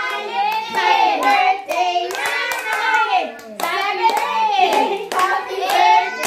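A small group of excited voices singing and calling out together, with hands clapping along.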